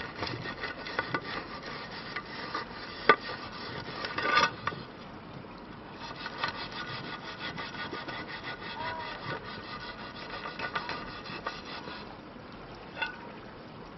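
Irregular scraping and rubbing with many small clicks, including one sharp click about three seconds in and a stronger scraping burst a second later.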